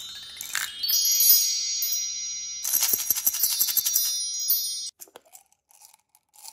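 Sparkling chime sound effect: many high bell-like tones pile up and ring on together, with a flurry of quick glittery clicks in the second half, then cut off suddenly about five seconds in.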